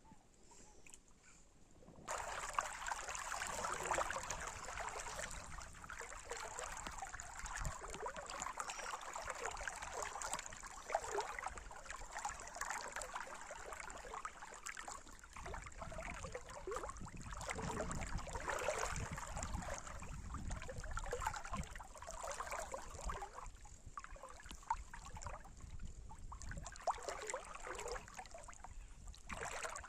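River water flowing, a steady rush full of small splashes that starts abruptly about two seconds in.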